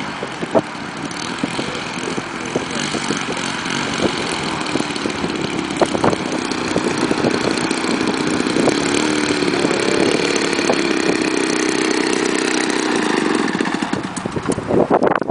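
A radio-controlled model aircraft's small engine running in flight. It grows louder through the middle with its pitch wavering, then fades away near the end.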